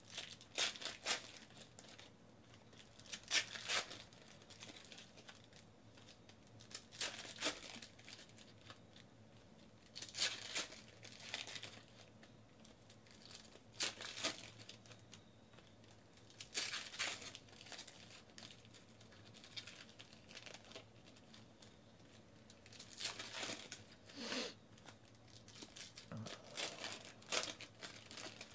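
Trading-card pack wrappers being torn open and crinkled by hand. Short bursts of tearing and crinkling come every three to four seconds, one pack after another.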